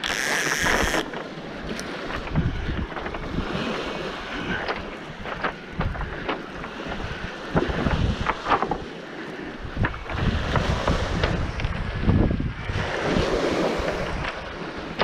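Wind buffeting the microphone over waves washing onto a pebble beach, with scattered short crunches and clicks.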